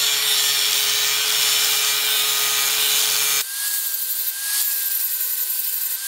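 Angle grinder cutting a notch into the end of a steel round tube: a steady, loud grinding with a motor whine. About three and a half seconds in the sound changes abruptly, the whine jumping higher and wavering as the cut goes on.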